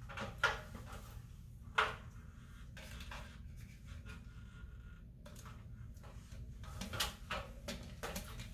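Plastic clicks and knocks from a wall clock being handled while its battery is swapped, with two sharp clicks in the first two seconds and another run of clicks near the end, over a steady low hum.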